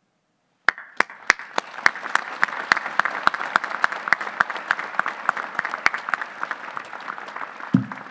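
Audience applauding, starting about a second in, with sharp, louder single claps close to the microphone.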